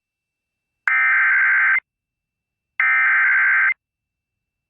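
Emergency Alert System SAME header: harsh, buzzy digital data tones in bursts of about a second, each followed by a second of silence, two full bursts with a third starting at the very end. The header opens an EAS activation, here announcing a National Weather Service severe thunderstorm warning.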